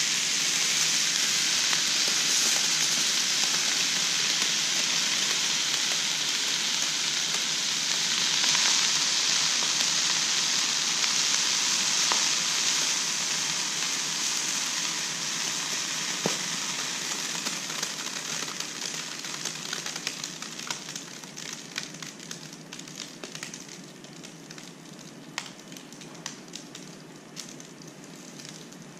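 Liquid nitrogen boiling off in a shallow tray: a steady sizzling hiss that fades gradually over the second half, with scattered crackles and ticks as it dies down.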